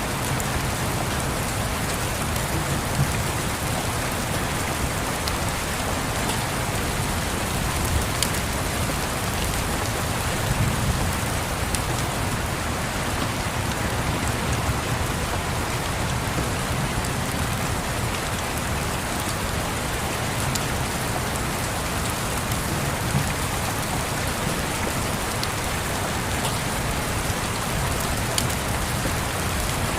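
Steady rain pattering on a surface, with a low rumble underneath and scattered small clicks.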